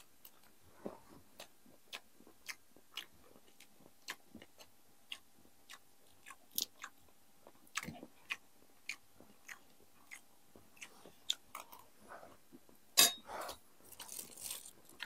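Close-up eating sounds: chewing and crunching food, with short sharp mouth clicks and smacks about twice a second and a louder burst about thirteen seconds in.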